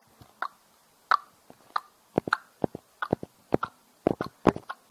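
A string of about fifteen short, sharp clicks and pops, spaced unevenly and coming faster in the second half.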